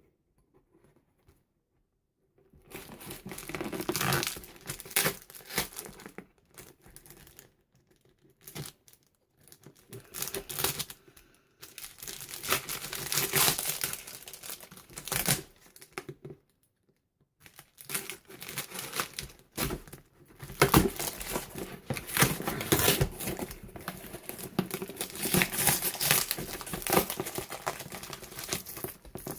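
Parcel packaging being cut with a craft knife, torn and crumpled as a cardboard box is opened, in several crinkly spells after a quiet first couple of seconds.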